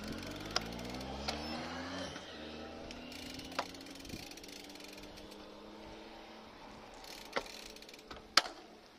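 Road bicycle rolling slowly over cracked, patched pavement, with mechanical clicking and a few sharp knocks, the loudest near the end. A motor vehicle's engine hum fades away over the first six seconds.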